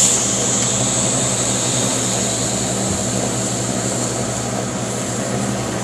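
Waffle batter sizzling on the hot grids of a closed 1950s GE waffle iron, a steady high hiss, over a steady low machine hum in the room.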